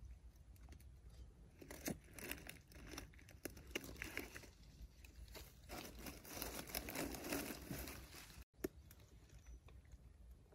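Faint, irregular crackling and rustling of dry leaves smouldering inside a hollow tree trunk.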